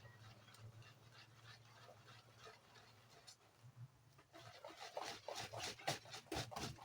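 Thick corn dog batter being stirred in a bowl: faint at first, then about four seconds in a run of irregular wet squelches and scrapes.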